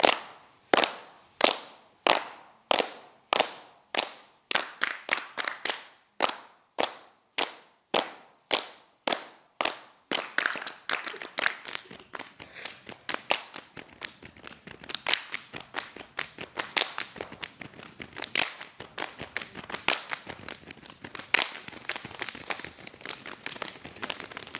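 Saman dancers clapping their hands and striking their chests in unison, with no singing. It begins as single sharp claps about one and a half a second, which speed up into a fast, dense patter about ten seconds in. Near the end there is a brief hiss.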